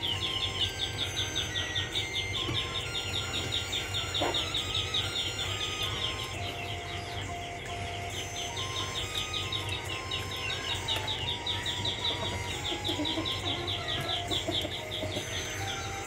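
Night insects chirping in a fast, even pulsing trill, with faint short whistle-like calls scattered over it and one brief rising call about four seconds in.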